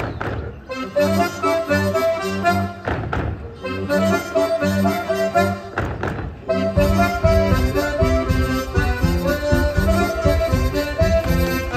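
Accordion playing a folk dance tune, with three dull thuds about three seconds apart in the first half. A steady low beat joins about seven seconds in.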